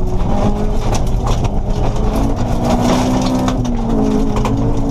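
Honda Civic rally car's engine running hard, heard from inside the cabin on a gravel stage, with the revs climbing and then dropping briefly about four seconds in at a gear change. Loose gravel and stones tick and ping against the underbody throughout.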